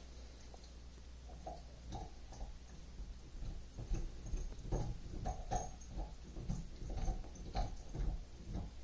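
Irregular soft knocks and rustles of handling and movement, busier after about two seconds, over a low steady hum.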